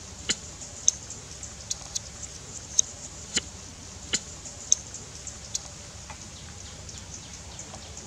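A series of sharp, irregular clicks and snaps, about a dozen spread over several seconds, over a steady low background noise.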